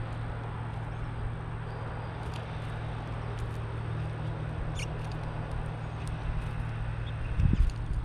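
Mourning doves pecking seed from a tray feeder close to the microphone, faint light ticks over a steady low hum and noise. A brief high chirp comes about five seconds in and a thump near the end.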